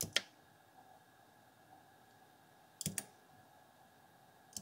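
Keys of a vintage Sharp EL-8 handheld calculator's reed-switch keypad being pressed, giving short quiet clicks: two right at the start, three in quick succession about three seconds in, and one more at the end.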